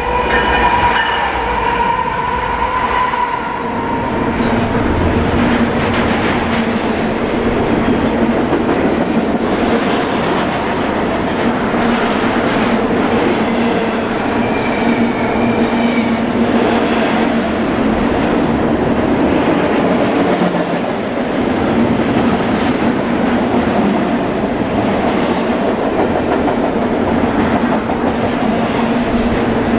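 Diesel freight locomotive passing at speed, its engine note strongest in the first few seconds. It is followed by the steady rumble and wheel clatter of double-stack intermodal container cars rolling by.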